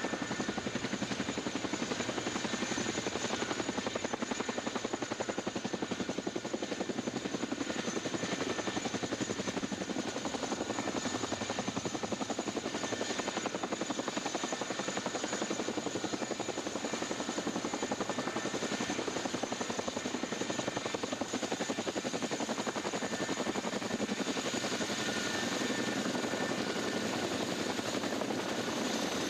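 CH-47 Chinook's tandem rotors and twin turboshaft engines running on the ground: a steady rapid blade chop with a thin high turbine whine.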